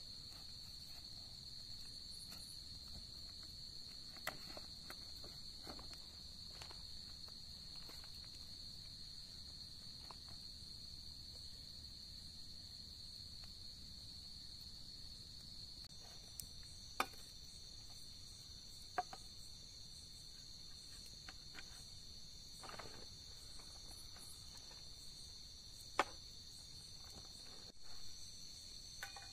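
Crickets chirring in one steady high-pitched drone, joined by a second, higher insect about halfway through. A few faint, sharp clicks stand out now and then, the loudest about seventeen and twenty-six seconds in.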